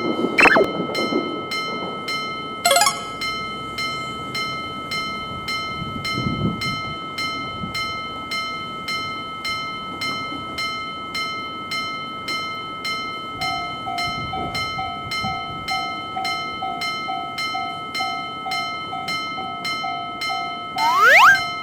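Railroad crossing warning bell ringing in an even beat of about two strikes a second. A second pulsing tone joins about two-thirds of the way through. Near the end a brief rising sweep is the loudest moment.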